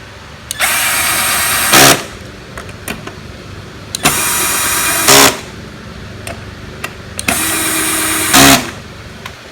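Power driver running down the three bolts of a lawnmower recoil starter housing. There are three short runs, each ending in a brief, louder burst as the bolt seats and tightens.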